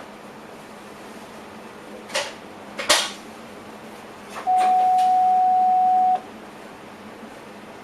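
Train cab: a few sharp clicks, then a single steady electronic beep lasting under two seconds, over the cab's steady running hum.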